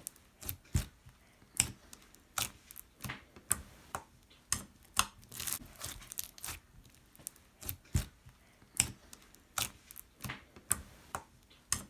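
Homemade slime being squished and poked by hand, giving off irregular sharp pops and crackles, roughly one or two a second.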